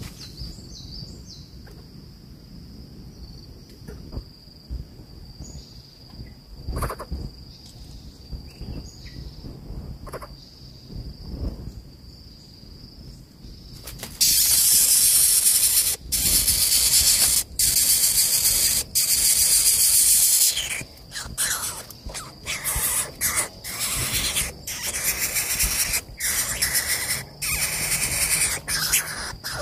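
Greater coucal chick giving loud, harsh hissing begging calls as the adult arrives at the nest with food. The hiss starts suddenly about halfway through as one continuous sound for several seconds, then breaks into rapid repeated rasps. Before it there is a steady high insect trill with faint rustling.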